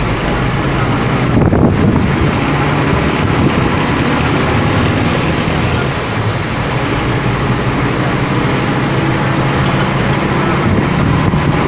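Scania P310 fire truck's diesel engine running steadily while driving, heard from inside the cab, mixed with tyre and road noise.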